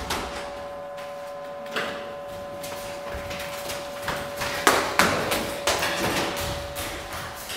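Quick footsteps on a hard floor, sparse at first, then louder and closer together in the second half as someone runs, over a steady humming tone.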